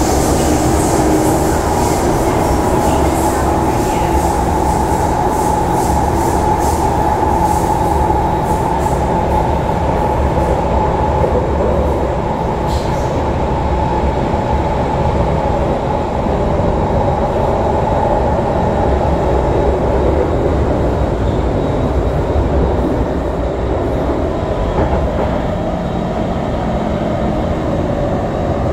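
SMRT C151 metro train running in a tunnel, heard inside the carriage: a steady rumble of wheels on rail with a whine over it that fades somewhat in the second half.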